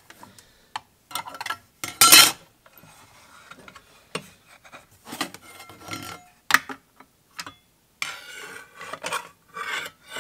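A DeWalt cordless circular saw and its 6.5-inch steel blade being handled while the blade is fitted: scrapes, light metal clinks and knocks, with a loud clatter about two seconds in.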